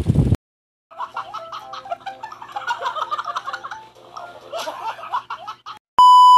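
Wind buffeting the microphone, cut off abruptly; after a short gap, a few seconds of high-pitched laughter; then a loud steady 1 kHz test-tone beep, the tone that goes with colour bars, lasting under a second.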